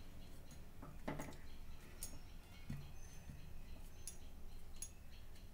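Light, irregularly spaced clicks and taps of fingers on a metal plate lid being pressed down onto a dough-sealed cooking pot.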